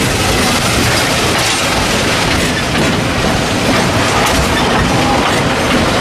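Open passenger cars of a small steam-hauled train rolling along the track: a steady rumble with irregular clicks from the wheels on the rails.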